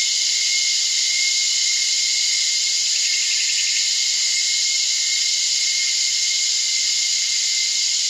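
Dense, steady chorus of cicadas in a highland rainforest, a high hiss-like drone with a thin steady whine running under it.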